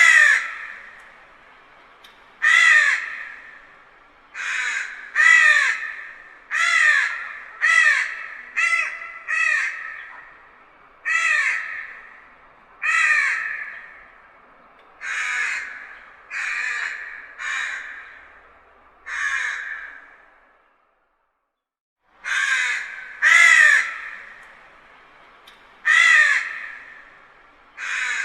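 Crows cawing: a long series of harsh, downward-bending caws, one every second or two, broken by a short silence about 21 seconds in before the cawing starts again.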